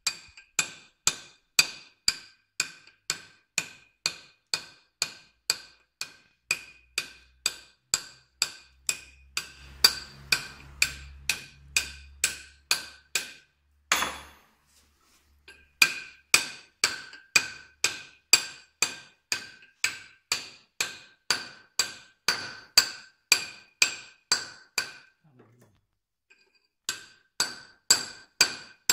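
A stonemason's hammer strikes a steel chisel on a stone block in steady blows, about two a second, each with a bright metallic ring. The blows stop briefly about halfway through with a short scrape, and pause again for a couple of seconds near the end.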